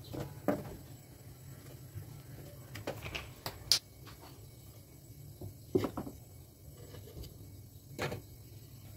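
Dried, baked dough seal being cracked and pulled away from the rim of a lidded clay cooking pot: a handful of separate sharp cracks and crumbling snaps, the loudest a little under four seconds in.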